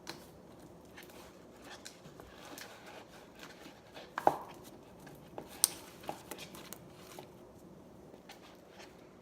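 Hands working a sticky batch of homemade slime: scattered small clicks and squelchy handling noises, with two sharper knocks about four and five and a half seconds in.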